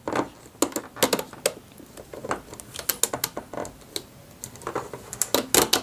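Irregular small clicks and taps of a metal hook and rubber bands against the clear plastic pegs of a Rainbow Loom as the rubber-band bracelet is pulled off the loom, with a quick run of louder clicks near the end.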